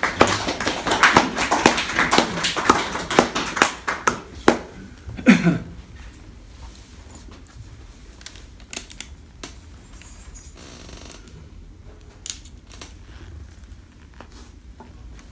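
Sheets of paper rustling and being shuffled for about five seconds, ending in a brief low sliding sound. After that come quieter scattered handling clicks and the plastic cap of a water bottle being twisted open.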